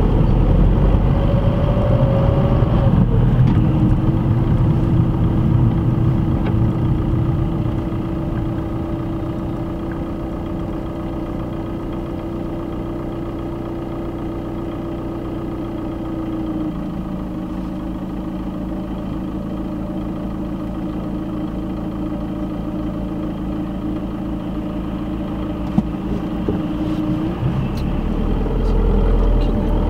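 Car engine and road noise heard from inside the cabin as the car rolls and slows in traffic, then a quieter steady engine idle while it waits stopped in a queue. The engine sound grows louder again near the end.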